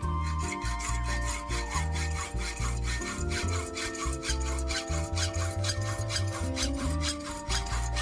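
Hand file rasping across a flat strip clamped in a bench vise, in quick, regular back-and-forth strokes, over background music with a steady bass line.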